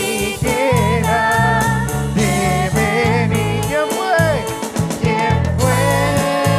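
Live worship band playing a song: drum kit, guitar and a deep bass line, with a man singing over it.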